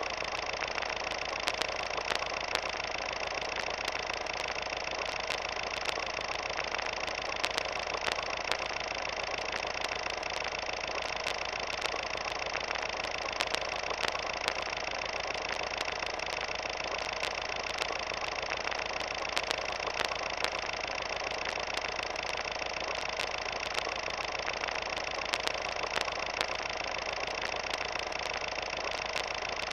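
A steady mechanical whir with many small clicks and crackles scattered through it, unchanging throughout.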